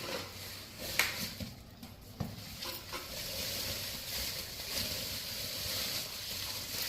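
Electric kettle parts and packaging being handled: two light knocks about one and two seconds in, then a steady rustling.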